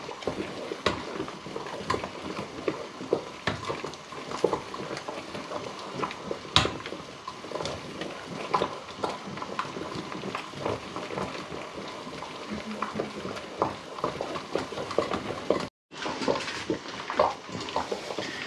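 A spoon stirring thick carp roe paste in a stainless steel bowl set over a steaming pot, scraping and clicking irregularly against the bowl. The sound drops out for an instant near the end.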